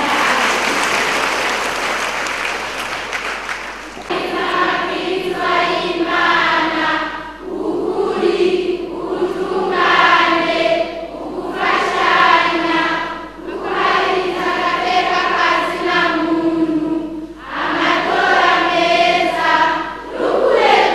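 For about the first four seconds, an even wash of noise like applause. Then a group of voices sings together in short phrases, with brief breaks between them.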